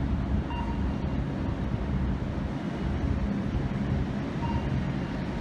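Steady low rumble of open-air ambience with wind on the microphone, and two faint brief high tones, one near the start and one near the end.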